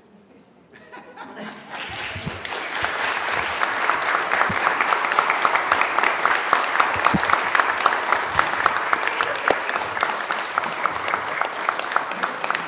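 Congregation applauding. The clapping starts about a second in, builds quickly, and then continues steadily.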